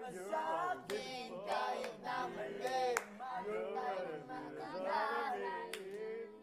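Several young voices singing a song together, holding and bending notes, with a few sharp claps.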